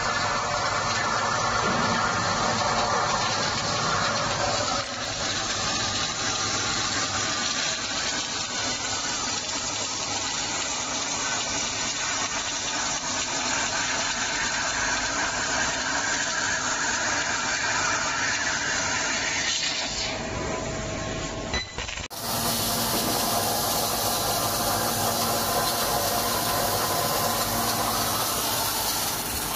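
Steady loud hiss of a 20,000 W fiber laser cutting head slicing through 40 mm thick 45# medium-carbon steel plate, with the machine's running noise under it. The sound breaks off for a moment about three-quarters of the way through and picks up again.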